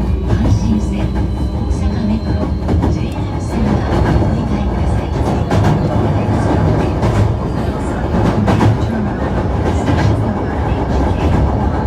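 Hankyu 1300 series electric train (Toyo IGBT VVVF drive) running on the line: a steady loud rumble with sharp wheel clicks over rail joints.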